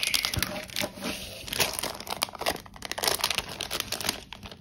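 Cellophane sleeves and plastic packaging crinkling as they are handled and opened by hand. Many quick crackles follow one another, dying down near the end.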